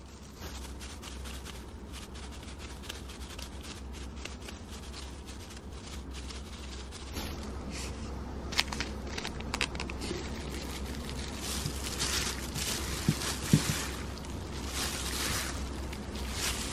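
Gloved hands squeezing whole aged kimchi and tossing it with noodles, chili powder and vegetables in a glass bowl: plastic gloves crinkling and wet food squishing, with scattered clicks and scrapes. The mixing grows busier and louder in the second half, over a low steady hum.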